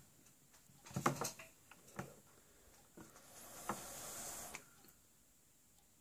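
A few soft clicks and knocks, the loudest about a second in. About four seconds in comes a short hiss of under a second as air is drawn through a Nimbus rebuildable atomizer, with its dual 0.47-ohm kanthal nano coils firing on a mechanical mod.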